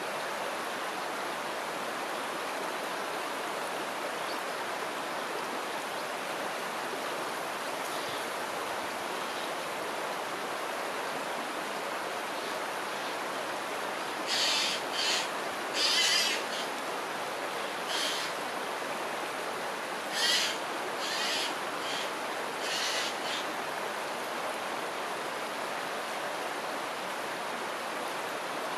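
Steady rush of flowing river water. About halfway through, a bird gives a series of about eight short, high calls over roughly ten seconds, then stops.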